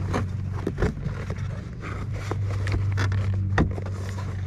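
Armorlite floor liner being worked into place by hand: scraping and rubbing with scattered clicks and taps as the edge is rolled and tucked in, over a steady low hum.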